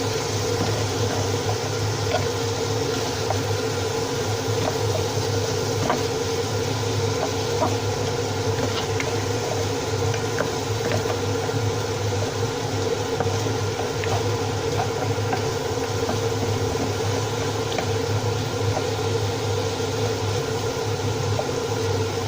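Steady mechanical hum of a motor, with a low drone and a steady mid-pitched tone, and scattered light clicks of a utensil stirring the pot.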